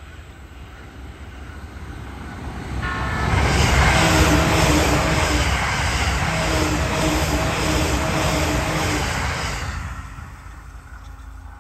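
JR East E657 series electric limited-express train passing at speed: the rush of wheels on rail and the hum of its motors build up, stay loud with a regular rhythmic pulse for about six seconds as the cars go by, then fade away quickly.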